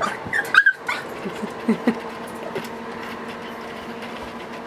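French bulldog puppies giving a few brief whimpers and squeaks in the first two seconds, over a steady low hum; after that only the hum remains.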